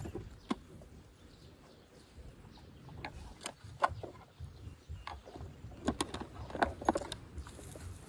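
Scattered clicks and light creaks of a woven wicker bird cage being handled by a gloved hand: one sharp click about half a second in, then a lull, then a run of clicks from about three seconds in until near the end.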